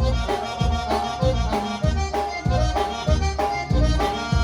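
Live conjunto band playing an instrumental fill between sung lines: button accordion melody over a steady bass beat.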